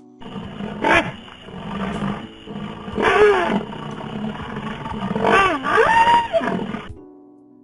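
A wild animal calling: loud pitched calls that swoop up and down in pitch, a short one about a second in and longer ones about three seconds in and again near the end.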